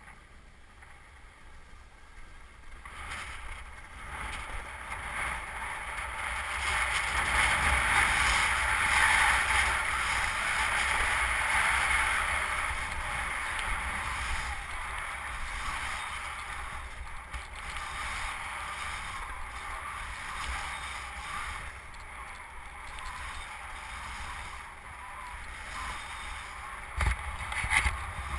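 Skis sliding and scraping over hard, tracked snow, a hiss that swells a few seconds in and then settles, over a low rumble of wind on the helmet-mounted camera's microphone. A few knocks near the end.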